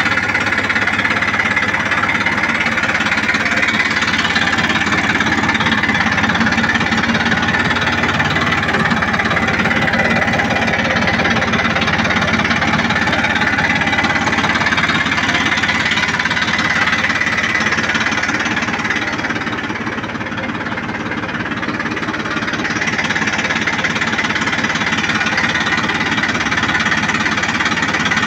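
Tractor's diesel engine running steadily with a knocking beat, easing off slightly for a couple of seconds about twenty seconds in.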